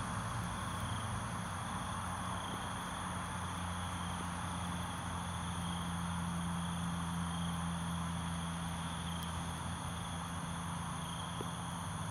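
Night insect chorus: steady high trills, with a higher chirp repeating about once a second, over a steady low hum.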